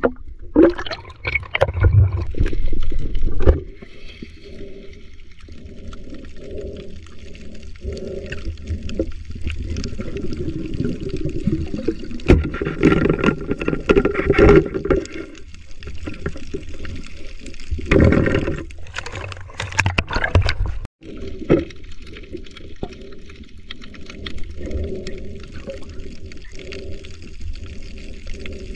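Muffled underwater sound of moving seawater picked up by a submerged camera, gurgling and sloshing with a run of soft pulses, and louder surges of water noise at the start, about 12 to 15 seconds in and again around 18 seconds.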